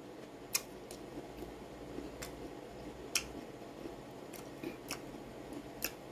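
A man chewing a bite of raw guava with his mouth closed: a few faint, scattered crisp crunches and clicks.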